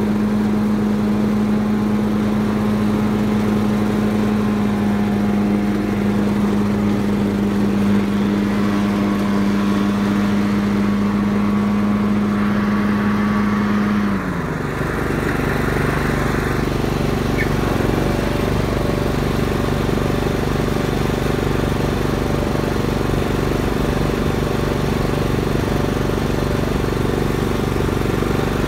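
Ride-on lawn tractor's engine running steadily while mowing. About halfway through, its pitch drops to a lower note and stays there.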